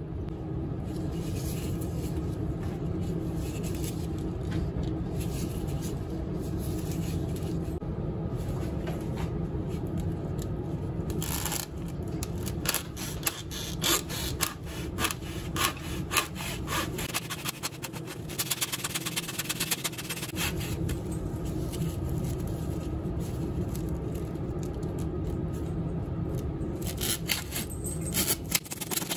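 Hacksaw cutting back and forth through foam dice in a plastic mesh bag and its cardboard header card, stroke after stroke, starting a little over a third of the way in. Before the sawing there is only steady low background noise.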